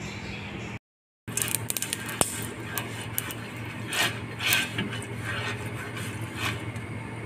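Pastry brush stroked across a heating ridged grill pan to oil it, each stroke a short hiss, with a quick run of clicks before the brushing. A steady low hum runs underneath.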